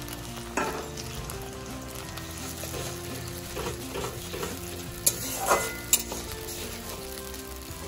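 Sliced onions and ginger-garlic paste sizzling in hot oil in an iron kadai, stirred with a metal spatula that scrapes against the pan. There is one sharp clink about half a second in and three more between about five and six seconds in, the loudest moments.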